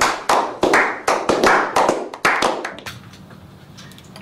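A small group of people clapping, quick uneven claps overlapping one another, stopping about three seconds in.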